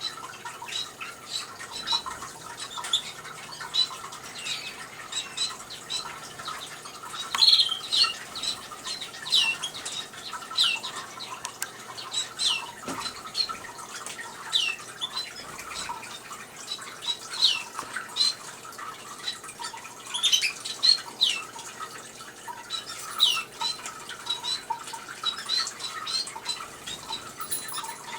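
Cage birds, canaries and finches, calling: many short, sharp chirps that sweep downward in pitch, repeated irregularly throughout, over the faint steady trickle of a small water fountain.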